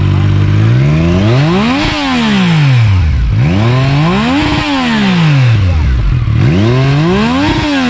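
Triumph Street Triple 675's inline three-cylinder engine, breathing through an Arrow slip-on exhaust, idling and then blipped up three times, each rev climbing and falling back smoothly.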